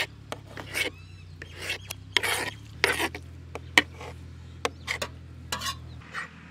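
Knife slicing through raw chicken liver against a cutting board: an irregular run of short scraping strokes, about two a second, stopping near the end.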